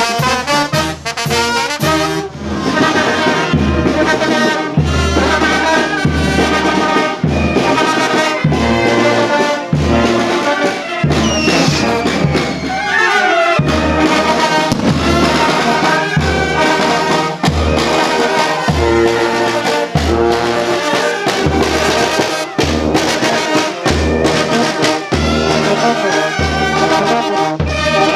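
Brass band music: trumpets and trombones playing a tune over a steady, evenly repeating low bass beat.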